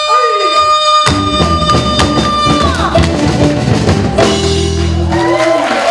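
A pansori singer holds one long high note. About a second in, a band with drum kit and bass crashes in for the closing flourish, and sharp taps cut through it. The sung note falls away near three seconds, the band ends on a held low chord, and applause starts at the very end.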